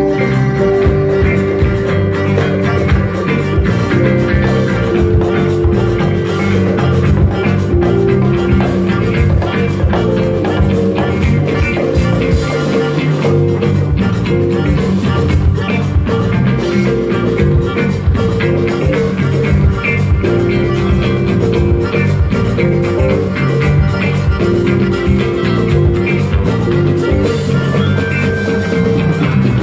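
Live rock band playing an instrumental passage: several electric guitars over a steady bass line, drums and percussion.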